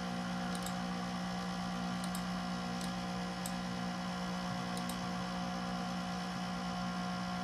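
Steady, very loud fan hum from a Macintosh SE's cooling fan, which the owner believes is abnormal. A few light mouse-button clicks sound over it as the file list is scrolled.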